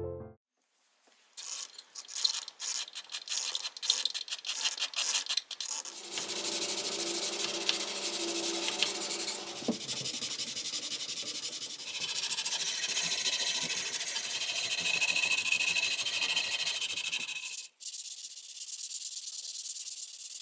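Hand sanding of a stripped antique wooden rocking chair with sandpaper: rasping back-and-forth strokes, short and uneven at first, then a steady run of rubbing that drops briefly near the end and carries on more quietly. The sanding takes off remaining paint and old stain from the bare wood.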